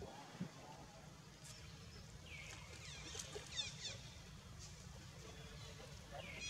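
Young long-tailed macaques giving faint, short, high-pitched squeaking calls that slide in pitch, a cluster about two to four seconds in and another near the end, over a low steady rumble.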